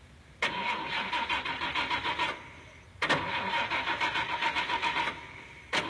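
A car's starter cranking the engine in two attempts of about two seconds each, both stopping without the engine catching, and a third attempt beginning near the end.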